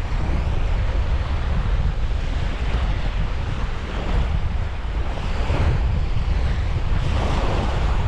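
Wind buffeting the microphone in a steady low rumble, over sea waves washing ashore in several swells that rise and fade.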